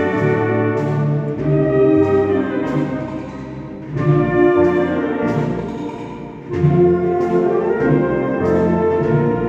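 Wind band playing a slow processional march, brass carrying sustained chords. The phrases fade and then come back in loudly, about four seconds in and again near seven seconds.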